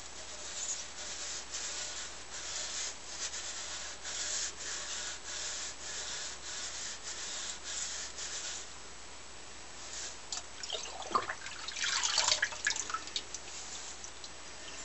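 Coarse steel wool scrubbing an aluminium piston, a hissing stroke about twice a second, to clear carbon left after an oven-cleaner soak. After a short pause, about ten seconds in, come irregular louder scrapes with drips and splashes of sink water.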